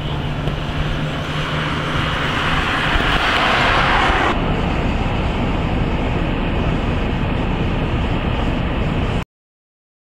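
Strong blizzard wind rumbling on the microphone, with cars driving on a snow-covered road; a hiss builds over a couple of seconds and stops abruptly, and all sound cuts out near the end.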